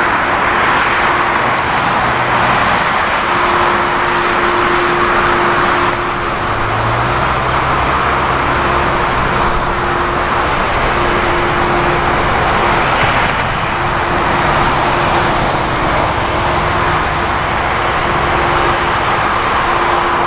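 Airbus A330-300's General Electric CF6-80E1 turbofans running at low taxi power: a steady jet hiss with a held whine. A low tone steps up slightly about seven seconds in.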